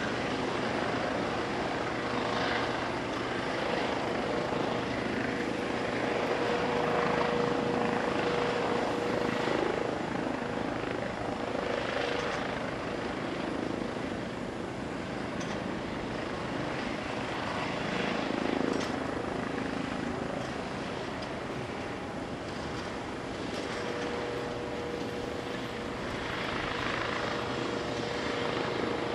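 Eurocopter EC135T2+ police helicopter running, its twin Turbomeca Arrius turboshafts and main rotor at flight power as it hovers just above the ground and settles onto its skids. A steady whine runs through it.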